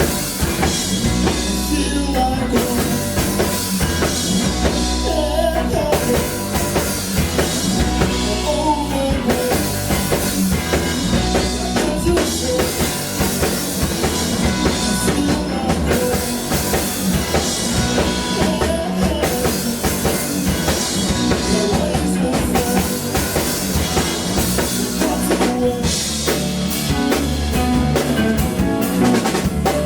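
Live band playing music with a drum kit prominent, steady and loud throughout.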